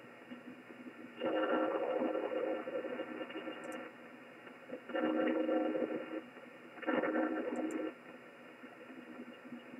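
Strange buzzy interference heard through an HF receiver in upper-sideband mode on the 15-metre band: over a steady hiss, a raspy noise with an even stack of steady tones comes in three bursts, the first nearly three seconds long and the others about a second each. The owner suspects electrical interference.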